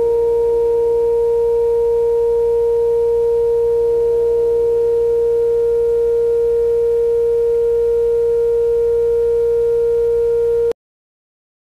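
Steady sine-wave test tone from a signal generator, played through a tube radio's 6F6G output stage and loudspeaker. It is a single loud mid-pitched tone that holds unchanged, then cuts off abruptly near the end.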